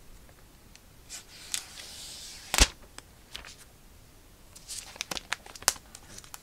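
An iPad being slid out of its cardboard box and handled. There is a soft sliding rustle, then a single sharp knock about two and a half seconds in, and a flurry of light clicks and taps near the end.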